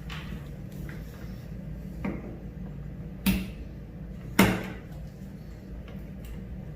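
Two sharp knocks, about a second apart, with a few fainter clicks of handling: hand tools and an old toggle light switch being worked out of a wall box.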